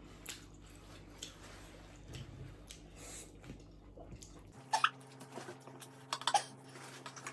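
Faint close-up eating sounds: chewing with soft wet, squishy mouth noises and a few sharper clicks. The low background hum stops abruptly about four and a half seconds in.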